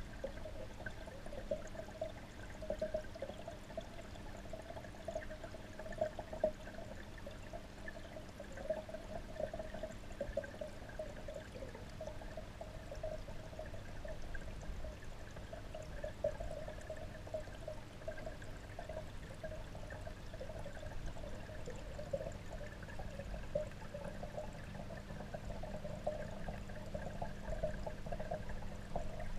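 Steady running water in a garden pond, heard with the camera underwater.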